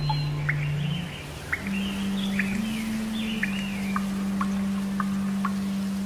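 Birds chirping: a string of short high chirps and gliding whistles over a soft steady hiss. A low sustained musical drone sits under them and shifts pitch a few times.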